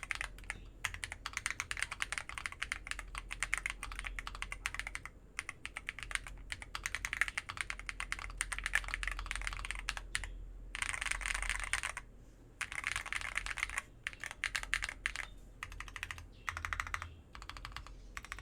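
Fast typing on an Akko ACR Pro Alice Plus mechanical keyboard with Glorious Panda tactile switches, clear keycaps, a polycarbonate plate, Poron PCB foam, case foam and the tempest tape mod, giving creamy keystrokes. The typing comes in quick runs broken by short pauses.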